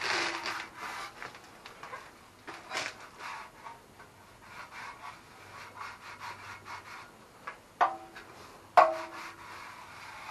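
Shop towel rubbed in scrubbing strokes over the metal muffler of an old Yamaha Grizzly 660 OEM exhaust, wiping off mud. A metallic clank with a short ring comes right at the start, and two louder clanks, each ringing briefly, come about three-quarters of the way through as the pipe is knocked.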